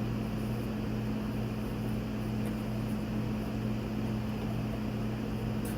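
Steady low hum of room background noise, with two low steady tones and no distinct handling sounds.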